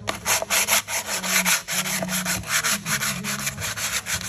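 A trailer wheel rim being sanded by hand with an abrasive pad, in quick back-and-forth scrubbing strokes of about five a second. The metal is being scuffed dull so that paint will stick.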